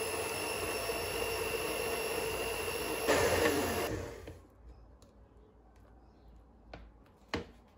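Electric hand mixer on a stand bowl whipping cream: a steady motor whine with the beaters running, louder for a moment about three seconds in. The motor stops about four seconds in, once the cream is whipped stiff, and two short clicks follow near the end.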